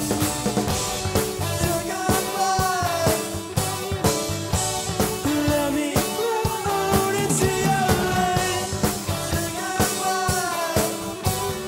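Rock band playing live: electric guitars, electric bass and drum kit, with a lead melody that bends up and down in repeated phrases over a steady beat.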